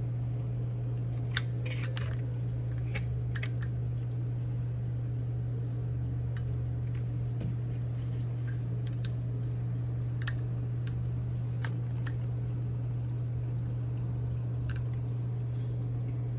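Reef aquarium running: a steady low hum from its pump, with water trickling and scattered drips.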